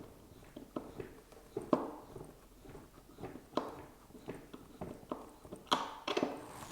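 Irregular light knocks and clicks of RC model-airplane parts being handled and fitted together, a few per second, with a louder cluster near the end.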